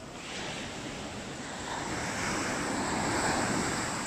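Ocean surf washing up over a black pebble beach: the wave swells from about half a second in to a peak around three seconds, then eases off.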